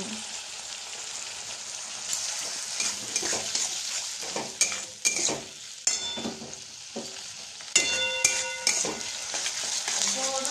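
Capsicum, onion and tomato sizzling in a metal kadai while a metal spatula stirs and scrapes them, with ringing knocks of the spatula against the pan about six and eight seconds in.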